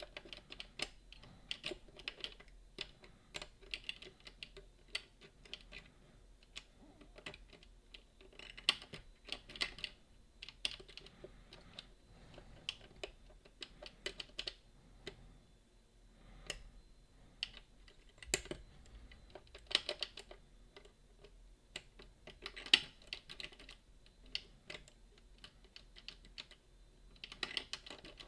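Small metal clicks and ticks from lever-lock picking tools working the levers of a Boda 429 eight-lever deadbolt. They come irregularly in clusters, with a few sharper clicks among them.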